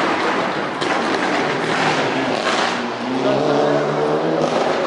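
Racing car engine revving and accelerating over the crowd's chatter, climbing in pitch about three seconds in.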